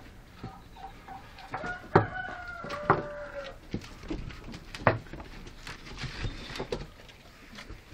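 A pitched animal call of about two seconds, starting a little after one and a half seconds in, amid scuffling and several sharp knocks.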